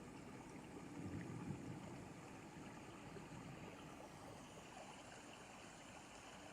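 Faint, steady rain recording from a thunderstorm soundscape, with a brief low rumble of thunder swelling about a second in.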